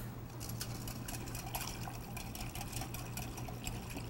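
Wire whisk stirring watermelon vinaigrette in a glass bowl: liquid sloshing with many light, irregular clicks of the wires against the glass.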